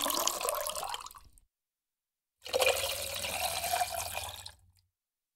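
A mixed drink poured in a long stream from one metal cocktail shaker tin into another, splashing into the tin, twice, each pour about two seconds long. This is the back-and-forth 'throwing' method of mixing a cocktail.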